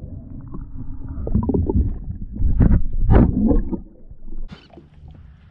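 Muffled rumbling and sloshing of water heard through a microphone held underwater, with louder surges about halfway through, then quieter as it comes up to the bubbling surface near the end.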